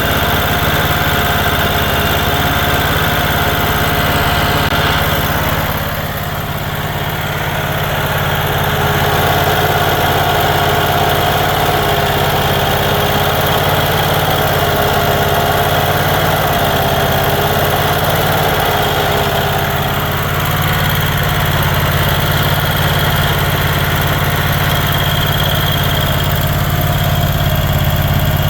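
Generac-built 15 kW standby generator's V-twin 32 hp overhead-valve engine running steadily. Its level dips briefly about six seconds in, and its pitch wavers slightly for several seconds in the middle.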